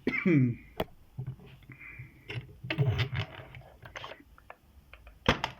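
Scattered metallic clicks and knocks from handling a just-opened Syneco 40 mm padlock and the lock picks, with a loud click near the end. A short falling voice-like sound opens it.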